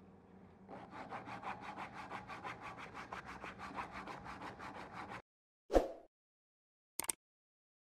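Abrasive sanding strip drawn back and forth around a wooden knife handle, shoe-shine style: a rhythmic rasping rub of rapid strokes that stops abruptly about five seconds in. It is followed by a single loud thump and then a short click.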